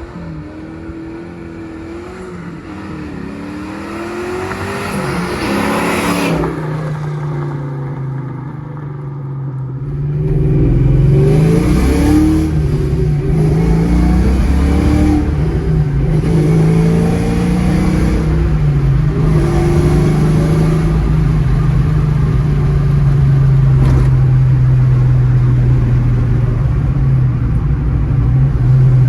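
Supercharged V8 of a 2001 Ford Mustang Bullitt with Flowmaster exhaust. It builds in pitch and loudness as it accelerates, then falls away sharply at about six seconds. From about ten seconds it is louder, revving up and down several times before settling into steady running.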